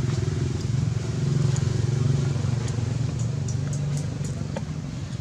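A running engine drones steadily and low, easing off slightly near the end, with a few faint scattered ticks over it.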